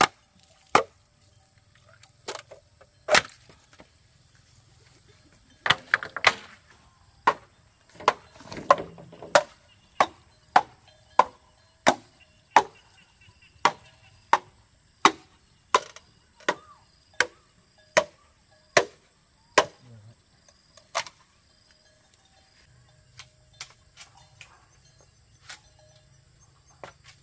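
Wood being struck with a hand tool in a steady series of sharp blows, about one and a half a second, from about six seconds in until about twenty-one seconds in. A few single blows come before, and fainter scattered ones after.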